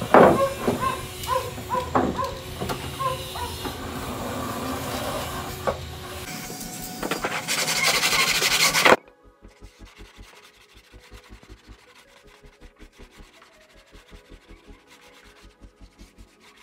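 Hard plastic cutlery tray being handled and rubbed against a plywood drawer box. A sharp knock as it is turned over, then scraping and rubbing with small squeaks, building to a loud hiss that cuts off suddenly about nine seconds in. After that only faint background music with a soft, regular beat.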